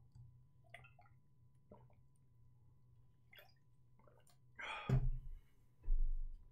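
Drinking from a bottle: faint small liquid and swallowing sounds, then a brief louder noise about five seconds in and two low thumps near the end.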